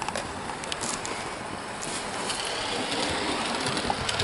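Hornby Maunsell S15 OO gauge model steam locomotive running along the track: a steady rolling noise with scattered small clicks, slowly getting louder.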